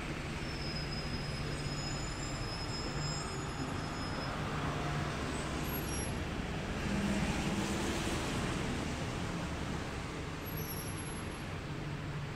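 Steady road traffic noise, growing a little louder around seven seconds in.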